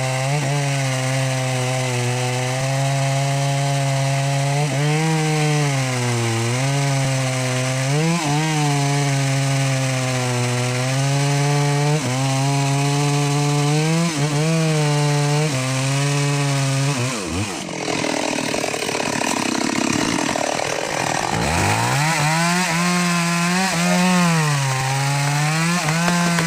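Two-stroke chainsaw cutting wood at high revs, its pitch sagging and recovering again and again as the chain bites into the cut. About two-thirds of the way through, the engine note drops off and then climbs back up to cutting speed.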